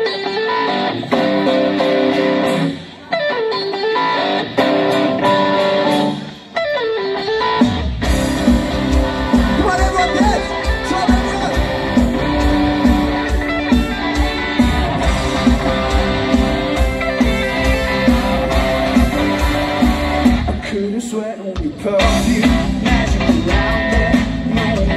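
A live rock band heard from the crowd: an electric guitar plays alone for about the first eight seconds, then drums, bass and the rest of the band come in together and play on loud, with a short break in the bass and drums about 21 seconds in.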